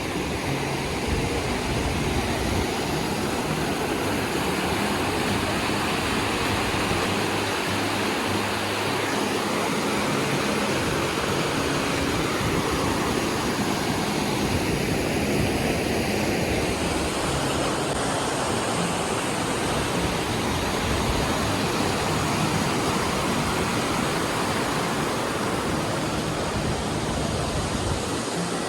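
Engstligen Falls waterfall: a steady, loud rush of falling water with no breaks.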